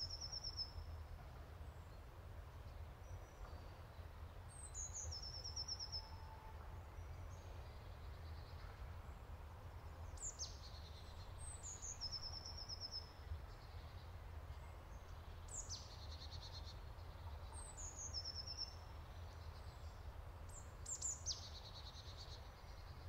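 Small bird calling every few seconds, each call a quick high falling note followed by a short buzzy trill, over a steady low hum.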